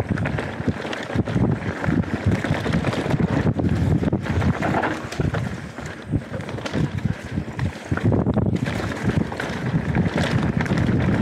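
Mountain bike descending a dirt singletrack at speed: tyres rolling over dirt and leaves, and the Canyon Spectral 125 rattling and knocking irregularly over bumps, with wind buffeting the camera microphone.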